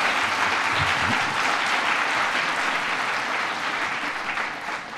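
Large audience applauding steadily, starting to die down about four seconds in.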